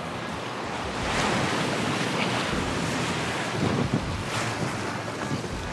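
Ocean surf washing up the beach around the wader's legs, with wind buffeting the microphone; the rush of water swells louder about a second in.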